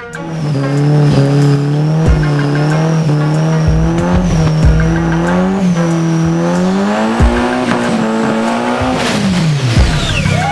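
Car engine held at high revs with tyres squealing, the engine note holding fairly steady, climbing slightly, then dropping away near the end.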